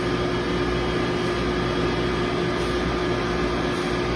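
Industrial dual-circuit R410A water chiller running steadily on its test run after an overhaul: a constant mechanical hum with a strong steady mid-pitched tone and a low drone under it.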